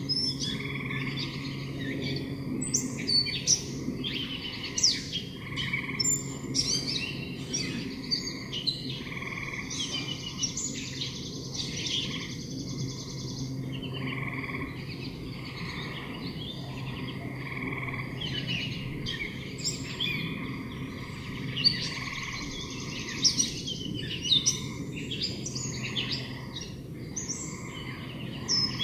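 Several birds singing and chirping: a busy, overlapping mix of short chirps and trills, over steady low background noise.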